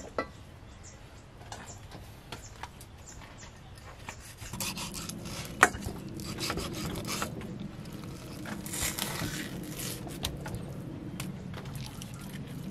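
Kitchen knife slicing a raw basa fish fillet on a round wooden chopping board: the blade cutting through flesh and skin, with scraping on the wood and small knocks, including one sharp knock. It starts faintly and becomes steadier about four seconds in.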